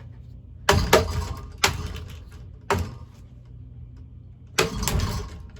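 A running ceiling fan's blades being struck hard, about six loud whacks with a clattering rattle after each, over the steady low hum of the fan motor.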